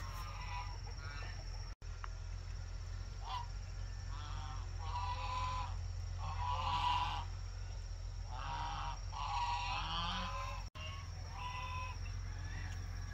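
Farm animals calling: a run of short, wavering calls about every second, with a steady low hum underneath.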